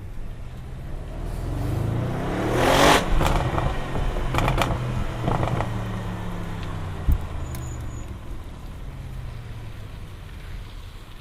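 Audi RS6 C7 Performance's twin-turbo 4.0 V8 revving up under acceleration to a loud peak about three seconds in. The throttle then lifts, bringing a few sharp exhaust crackles and pops and one more pop a little later. After that the engine note falls slowly and fades as the car slows.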